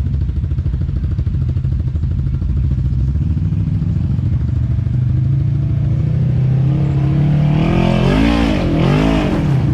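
Off-road vehicle engine running steadily, pitch creeping up, then revving hard up and down twice near the end as the driver gives it speed on a slick climb.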